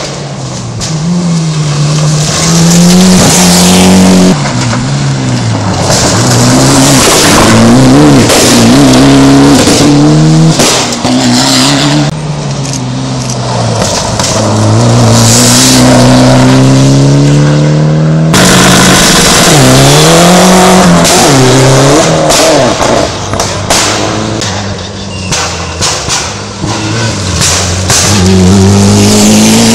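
Rally cars passing in turn on loose gravel, engines revving hard and falling back through gear changes and lifts, with gravel and tyres hissing and sliding under them.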